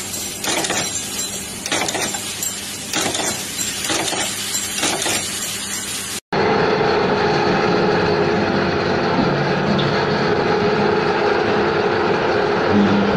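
Metal-on-metal clinks in a steady rhythm, a bit under two a second, from a small machine fixture in which aluminium hand levers are being worked. Then, after a cut, a hydraulic press runs with a steady drone and a held tone as its ram stands over a thick round steel bar, with a lower tone coming in near the end.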